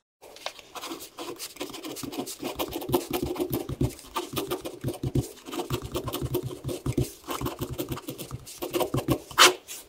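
Ballpoint pen scratching on squared paper as words are written by hand: a quiet, irregular run of short strokes and ticks, with one louder stroke near the end.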